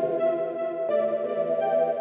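Electronic music played on synthesizer keyboards: sustained chords, changing about a second in.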